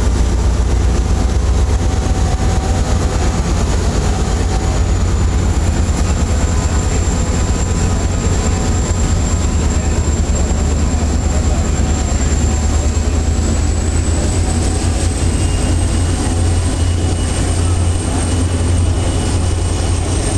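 Diesel commuter-train locomotive's engine running with a loud, steady low drone as it pushes its train away from the platform, with a thin high whine that rises slightly about two-thirds of the way through.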